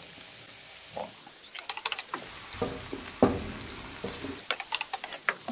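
Onion, garlic and ginger sautéing in oil in a nonstick frying pan: a faint sizzle under sharp clicks and scrapes of a utensil stirring against the pan. The clicks come in short clusters, about two seconds in, once loudly in the middle, and again near the end.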